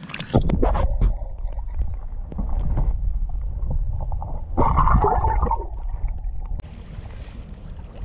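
Lake water splashing and gurgling around an action camera held at and just under the surface while a hand lets a smallmouth bass go, heard as a low underwater rumble with bursts of splashing. About six and a half seconds in the camera comes out of the water and only wind on the microphone remains.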